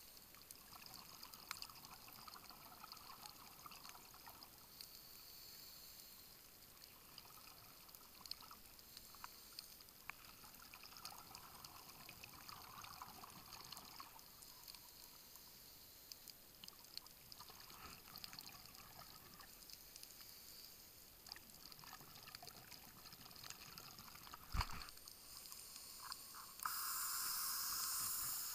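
Muffled underwater sound of scuba divers' exhaled bubbles from their regulators, coming in faint bubbling bursts every few seconds. Near the end there is a sharp knock, then a louder steady rush of water as the camera rises toward the surface.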